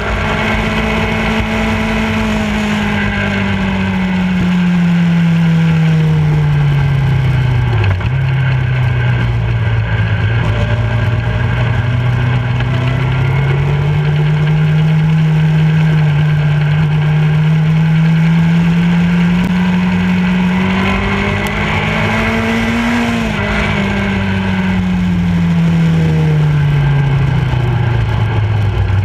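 Motorcycle engine running at road speed. Its note falls over the first several seconds, climbs slowly to a peak a little over three quarters of the way through, then falls again as the bike eases off. A steady rush of wind and road noise runs underneath.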